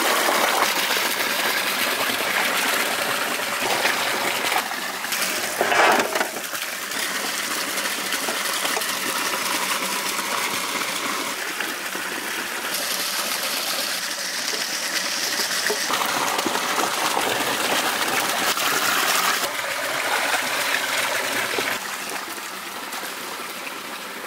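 Water gushing and splashing in a stone water tank as a whole skinned goat carcass is dunked and washed in it. The sound shifts abruptly several times.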